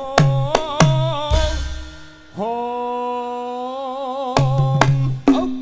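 Javanese tayub music: a voice sings long, wavering notes over the ensemble, with sharp kendang hand-drum strokes and a deep booming stroke about a second in.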